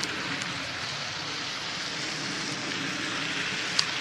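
Steady rushing roar of a twin-engine turboprop airliner flying overhead, with a single sharp click near the end.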